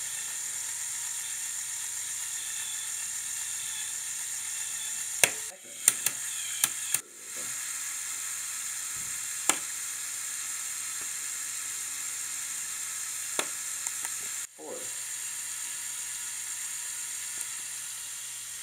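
Motorized Lego Technic drivetrain running with a steady high whir. A few sharp clicks come between about five and seven seconds in, and single ones near nine and a half and thirteen and a half seconds, as the dual-clutch sequential gearbox clicks through its gears.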